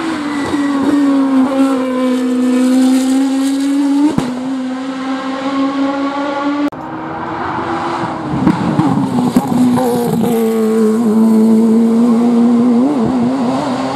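Racing car engines at high revs driving past close by, each holding a steady high note. The sound cuts off abruptly about seven seconds in and picks up on a second pass, by a GT3 racing car, with a brief crack about four seconds in.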